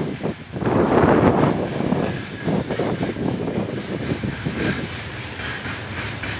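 Freight train of open gondola wagons rolling past close by: a continuous rumble and clatter of wheels on the rails, loudest in the first couple of seconds and then easing a little.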